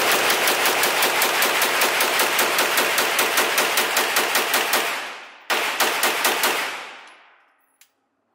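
Compact 9mm carbine fired rapidly on an indoor range: a long, even string of shots at about four or five a second, a brief pause, then a few more shots. The reverberation dies away near the end.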